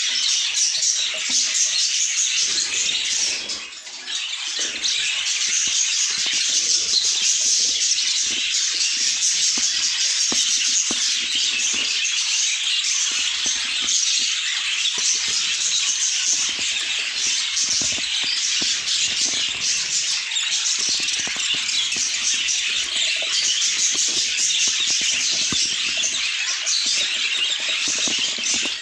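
A flock of budgerigars chattering and warbling all at once: a dense, continuous stream of high chirps and squawks, with a brief lull about three and a half seconds in.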